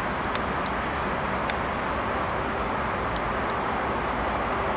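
Freight train of tank wagons approaching from a distance: a steady rumble and rail noise, with a few faint high clicks.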